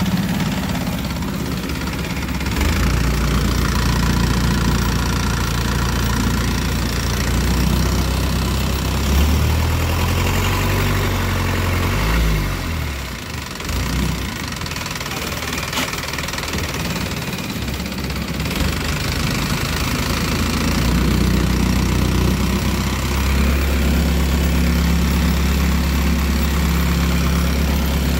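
Boat's exposed inboard engine running under way. Its note rises and falls about nine to thirteen seconds in, dips briefly, then settles to a steady drone that gets a little louder near the end.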